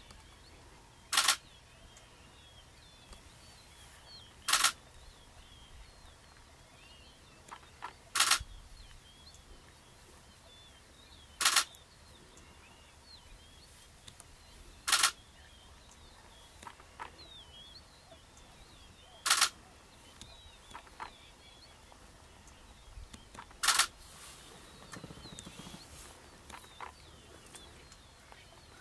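Camera shutter firing in short bursts of two or three frames, seven times at intervals of about three to four seconds, over faint high chirping.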